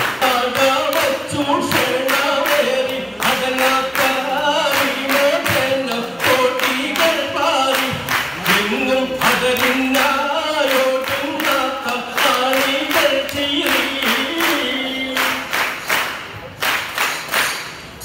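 A Malayalam folk song (nadan pattu) sung by a lead singer on a microphone and a hall of students singing along, with many hands clapping in a steady rhythm.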